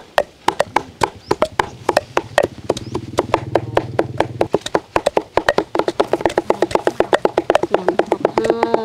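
Steel cleaver chopping fish on a wooden chopping board, mincing it into paste with quick, steady knocks, several a second.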